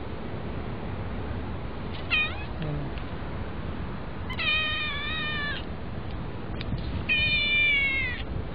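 Young white kitten meowing three times: a short call about two seconds in, then two longer calls of about a second each, the last one falling slightly in pitch.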